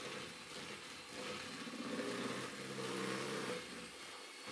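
Electric hand mixer running with a steady whine, its beaters creaming butter and sugar in a mixing bowl.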